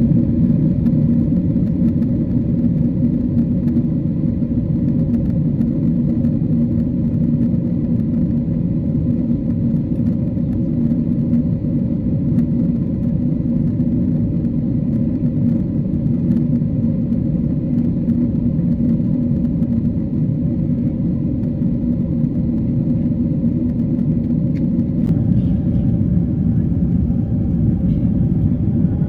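Steady cabin noise of a Boeing 777-300 airliner in cruise: a constant low rumble of engines and airflow with a steady hum.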